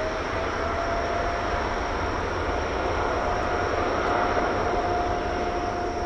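Boeing 777-300ER's twin GE90-115B turbofans at takeoff thrust during the takeoff roll: a steady engine whine over a deep rumble and roar, slowly getting louder. The whine settles at a steady pitch after a short rise.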